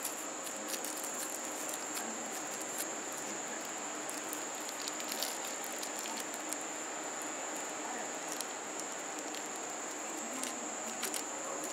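Thin plastic bag being twisted and knotted by hand: faint scattered crinkles and small clicks over a steady background hiss with a thin high whine.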